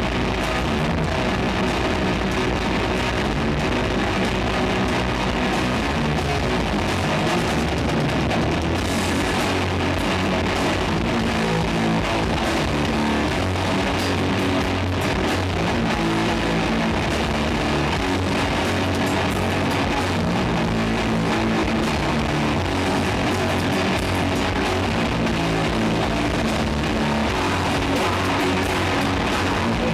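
Doom metal band playing live: heavily distorted guitars and bass holding slow, low chords that change every few seconds, over drums. The sound is loud and steady throughout.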